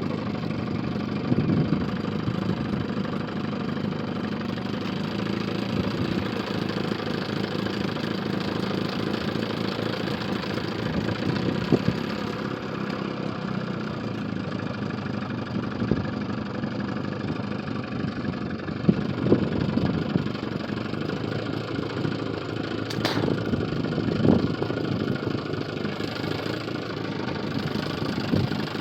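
Boat motor running steadily, with a few faint knocks.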